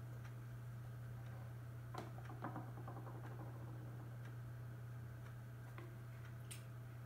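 Faint, irregular light clicks and taps of small toys being handled on a tabletop, with a short rattle of clicks about two and a half seconds in and a sharper click near the end, over a steady low hum.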